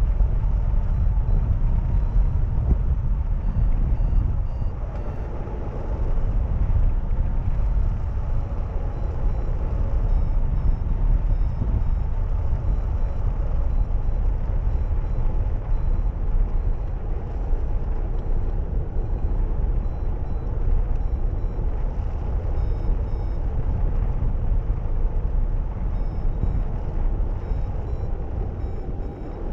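Steady rush of airflow over the microphone of a camera on a flying hang glider's wing, heavy and low, with a faint thin whistle running through it.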